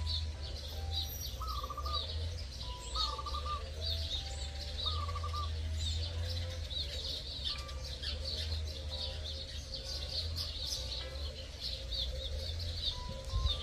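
Many small birds chirping busily and continuously, over light background music with a simple stepping melody and a steady low bass.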